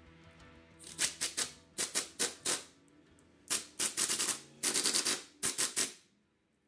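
Handheld pneumatic tool on a rear brake caliper's bolts, firing in short rapid bursts grouped in several clusters with brief pauses between.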